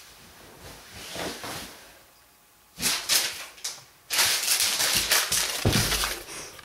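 Blankets and bedding rustling in bursts as a person gets into bed and pulls the covers over, with a soft thump on the mattress near the end.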